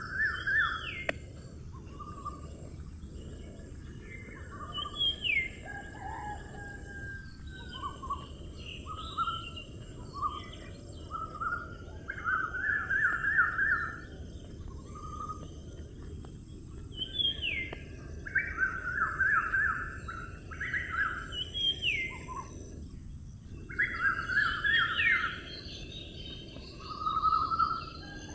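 Parrots chattering and calling in repeated bursts of fast trills and short rising whistles, over a steady high-pitched hiss.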